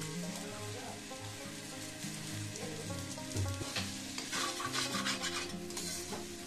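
Vegetables frying in a steel kadai with a light sizzle. From about four seconds in, a metal spatula scrapes and stirs them against the pan in quick repeated strokes. Soft background music plays underneath.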